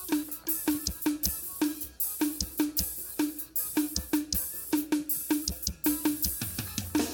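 Drum kit playing a steady groove: repeated snare and kick strikes under a continuous wash of cymbals, with a fill of lower, falling-pitched drum hits near the end.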